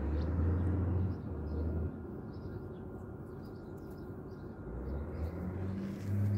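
Outdoor ambience: small birds chirping faintly and repeatedly over a low rumble that is strong for the first two seconds, eases, and swells again near the end.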